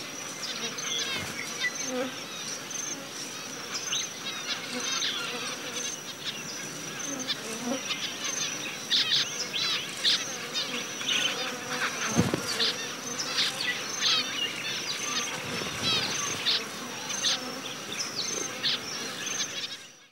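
Outback field recording: a steady, high-pitched insect drone with many short chirping calls of zebra finches over it. It fades out at the very end.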